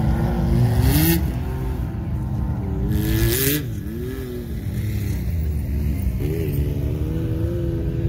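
Off-road vehicle engine revving up and down several times. Two brief hissing bursts come about a second in and around three seconds in.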